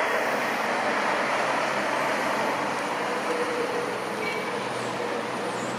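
Steady street traffic noise, with a car driving past close by.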